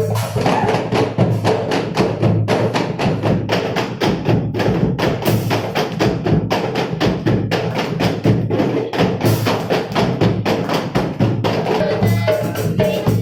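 Marawis ensemble percussion: hand-struck frame drums and hand drums playing a dense, fast, driving rhythm in an instrumental passage.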